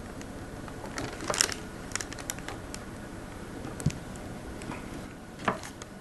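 Knife blade cutting into the plastic outer jacket of a coaxial cable: a run of small scrapes and clicks, busiest about a second and a half in, with single sharper clicks near four seconds and again near the end.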